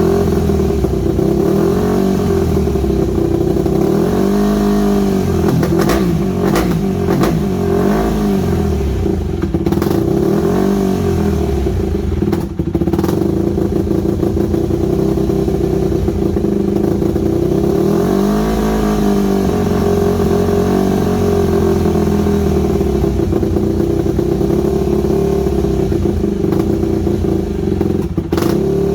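Yamaha WR250 single-cylinder four-stroke dirt bike engine running through its White Brothers exhaust, the revs rising and sagging again and again instead of holding a steady idle, with a few sharp clicks. The uneven idle points to a carburettor fault; the owner is unsure whether the idle jet is fully unblocked.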